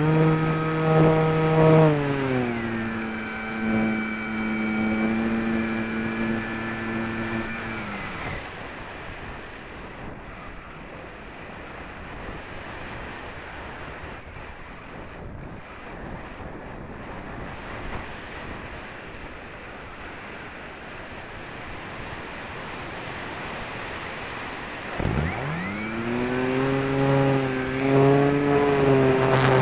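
Electric motor and propeller of a HobbyKing Walrus RC powered glider. It runs at throttle, drops in pitch about two seconds in, and cuts off about eight seconds in, leaving only a rush of air for the glide. Near the end it starts again with a sharply rising whine and runs steadily.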